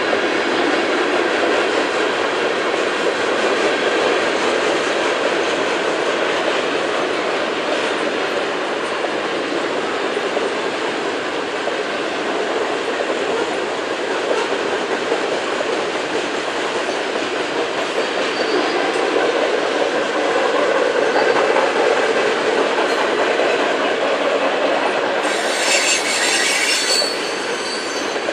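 Covered hopper cars of a long freight train rolling past, a steady rumble of steel wheels on rail. Near the end there is a brief high-pitched wheel squeal lasting about two seconds.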